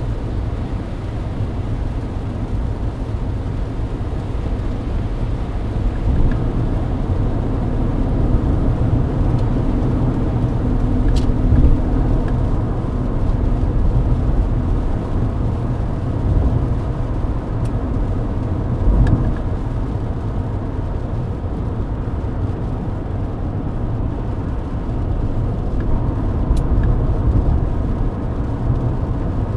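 Mercedes-Benz W124 at highway speed, heard from inside the cabin: a steady low rumble of engine, tyres and road noise on a wet expressway, with a few faint ticks.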